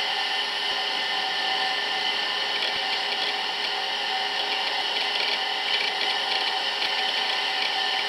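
Apple Macintosh LC III running as it starts up: a steady whir with several fixed tones from its fan and hard drive, with a grainy rasp that comes and goes from about three seconds in.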